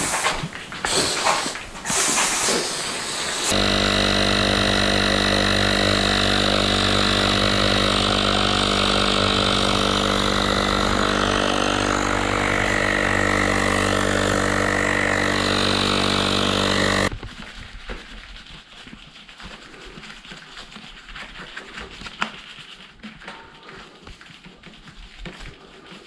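A pump-up foam sprayer hissing in a few short spray bursts, then a cordless air compressor runs with a steady hum for about 13 seconds, pressurising the ProWin Omnifoam sprayer bottle through its hose, and cuts off suddenly. Afterwards only light rustling and handling noises.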